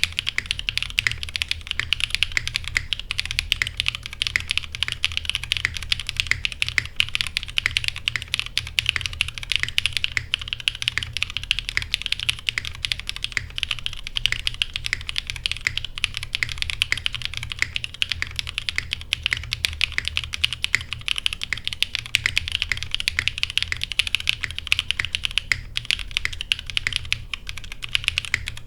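Continuous fast typing on a TGR x Monokei 910 ME mechanical keyboard with a polycarbonate plate and lubed linear BCP switches (Cherry top, Cream stem, Gateron X bottom) under GMK keycaps: a dense, unbroken stream of keystrokes.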